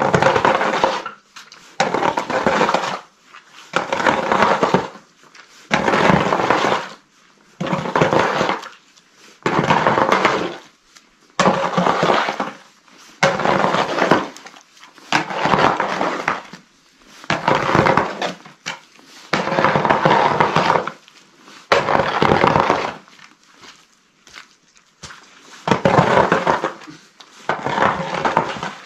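Shovel blade scraping wet mud across stone paving, one long rasping stroke about every two seconds.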